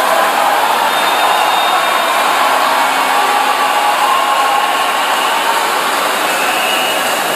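A large congregation cheering and applauding in a hall, one loud, steady wash of crowd noise that swells just before and eases slowly near the end.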